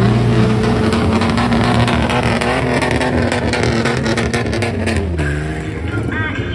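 Car engine with a loud exhaust revved up and held at high revs for about five seconds, then dropping back near the end.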